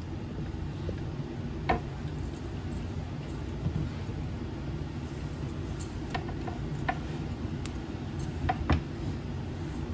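Kitchen knife knocking on a cutting board as bell peppers are cut: a handful of scattered knocks, two close together near the end, over a steady low hum.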